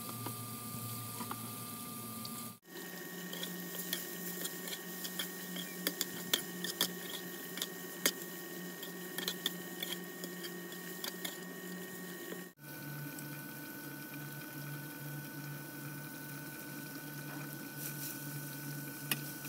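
Metal spatula scraping and clicking against a pan as grated coconut is stirred and cooked, over a steady hiss and hum. The clicks come thickest in the middle stretch, and the sound drops out briefly twice.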